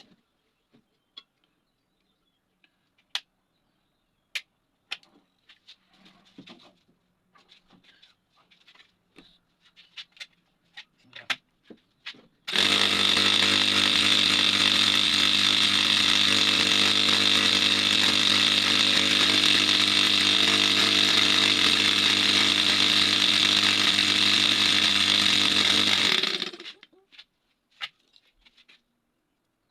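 Scattered light taps and clicks. Then, a little under halfway in, a machine starts abruptly, runs loudly and steadily for about fourteen seconds, and cuts off, followed by a few more taps.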